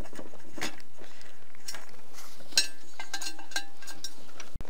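Metal hand tools clicking and clinking against the aluminium extrusion frame of a laser engraver kit while its grub screws are tightened: a handful of separate sharp clicks, a cluster of them near the end ringing briefly.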